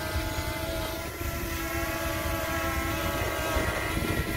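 DJI Mini 2 quadcopter hovering close by, its propellers giving a steady whirring hum of several tones that waver slightly. Low wind rumble on the microphone runs underneath.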